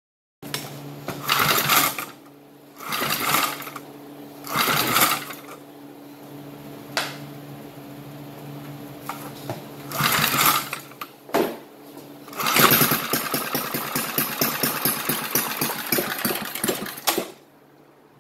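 Vintage 3 hp Briggs & Stratton flathead single-cylinder engine being pulled over several times in short bursts, then catching about twelve seconds in and firing rapidly for about five seconds before it stops abruptly. It runs weakly, which the owner puts down to the fuel mixture not being right yet.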